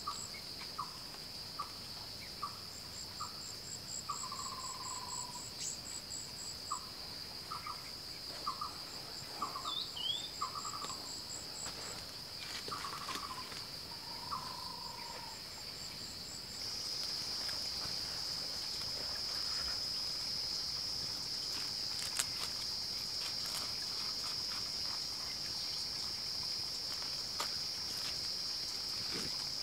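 Forest insects droning in a steady high trill, with trains of quick chirps above it. In the first half a bird calls a run of short repeated notes and a couple of longer slurred ones; about halfway the insect drone steps up louder, with a few light clicks.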